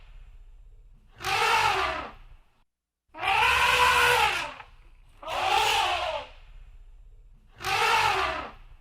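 Elephant trumpeting: four loud calls of about a second each, every couple of seconds, each rising then falling in pitch.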